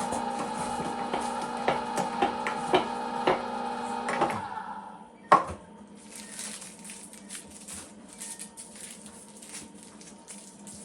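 Cabela's Carnivore electric meat grinder running steadily, with a few knocks, then switched off about four seconds in, its motor winding down. A sharp click follows, then light handling and rustling sounds.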